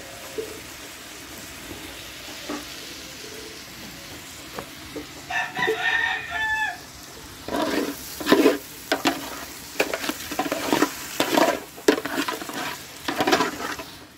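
Glutinous rice and chicken sautéing with garlic, onion and ginger in an aluminium pot, a faint steady sizzle. A rooster crows once, about five seconds in. From about seven and a half seconds a metal spoon stirs the rice, scraping repeatedly against the pot.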